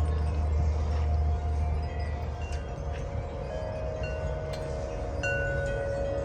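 Metal wind chime ringing in the wind: a few struck notes with long, overlapping rings. Wind rumbles on the microphone, strongest at first and easing after about a second and a half.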